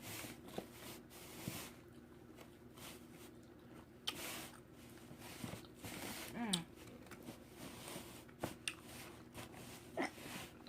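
Faint chewing and crunching of mini peanut butter oat cookies, with scattered small clicks and crackles. A short low vocal sound near the middle and another shortly before the end.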